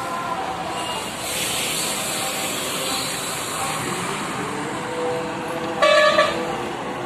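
Road traffic noise from a departing bus and a passing truck, with one loud half-second vehicle horn blast about six seconds in.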